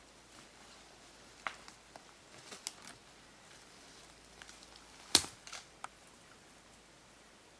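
A few short, sharp clicks and snaps in near-silent surroundings: a couple around a second and a half to three seconds in, and the loudest about five seconds in, followed by two smaller ones.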